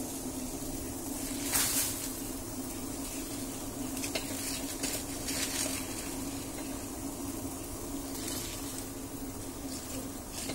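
Water at a rolling boil in a stainless steel pot, bubbling steadily, with a louder splash and rustle about a second and a half in as the cut genjer greens go in. A steady low hum runs underneath.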